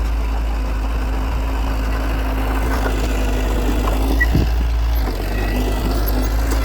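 Heavy diesel engine of earthmoving equipment running steadily, with a deep rumble and a steady hum. A single short knock comes about four seconds in.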